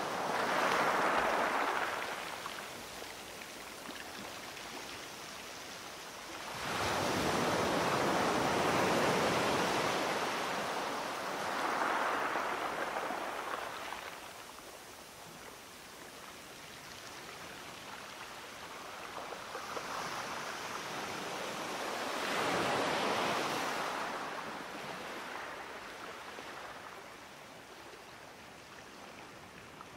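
Outdoor rushing noise that swells and fades in slow surges every several seconds, loudest near the start, around 7 to 12 seconds in and again around 23 seconds.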